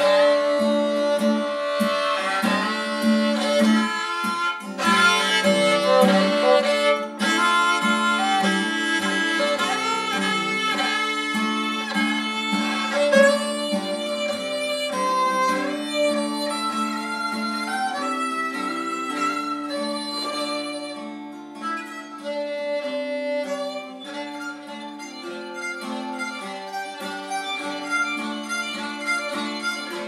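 A luthier-built violin, the Delodel, bowed in a melody over acoustic guitar accompaniment. The playing drops to a softer passage about two-thirds of the way through.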